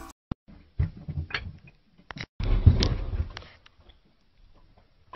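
Scattered thuds and sharp metallic clinks, the heaviest cluster a little past halfway, typical of artillery shells being tossed off an army truck onto a pile of shells.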